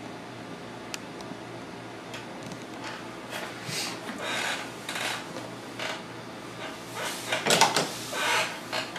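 A run of short rustling, rubbing noises close to the microphone, from handling and movement near the camera. They start a few seconds in and are loudest near the end, over a steady low hum.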